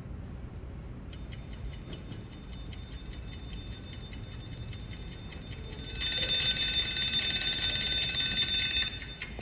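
Small wind-up alarm clock ticking steadily, then its alarm bell ringing loudly for about three seconds from about six seconds in, cutting off near the end as the ticking goes on.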